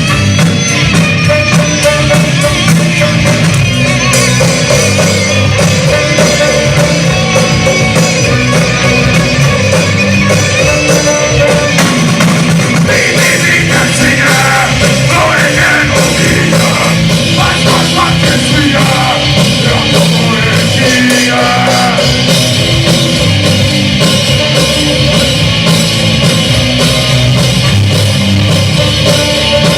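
Rock band playing loud music with sung vocals.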